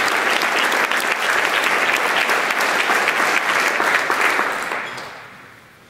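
Audience applauding, a dense patter of hand claps that fades away over the last second and a half.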